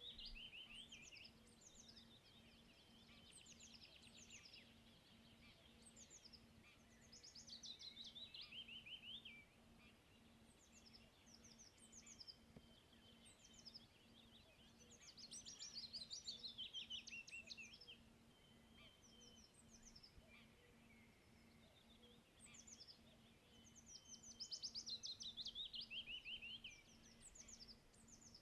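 Faint songbird song: a phrase of quick notes falling in pitch, about two seconds long, repeated roughly every eight seconds, with other small birds chirping between the phrases.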